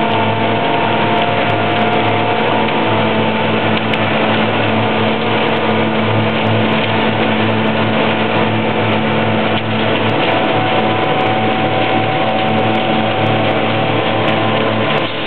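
Heavy concrete-paving machinery running: the engines of a tracked concrete paver and a ready-mix concrete truck, a steady loud machine drone with a low hum.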